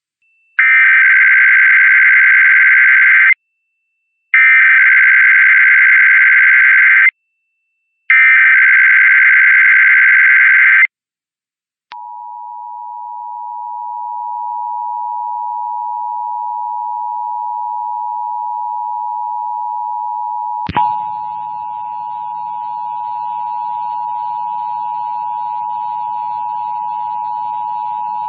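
Emergency Alert System test header: three rapid warbling data bursts of about three seconds each, the SAME code announcing the alert. Then the EAS two-tone attention signal (853 and 960 Hz) sounds as one steady dual tone from about twelve seconds in, with a click partway through.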